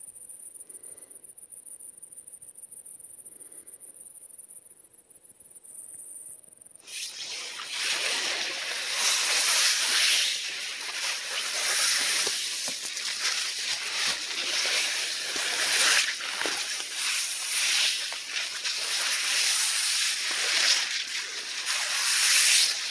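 Faint, high-pitched insect chirring in an evening field for about the first seven seconds. Then a much louder, uneven rustling hiss takes over abruptly and lasts to the end.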